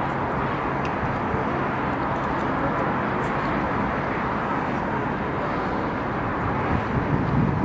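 Steady outdoor city ambience heard from a high open viewpoint: a constant low rush of distant traffic mixed with wind rumbling on the microphone, briefly louder near the end.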